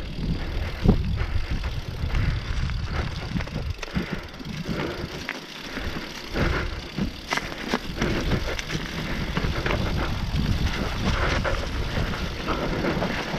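Mountain bike riding down a leaf-covered dirt singletrack, heard from on the bike: the tyres run over dirt and dry leaves under a steady low rumble, and the bike rattles with many short sharp clicks and knocks over bumps.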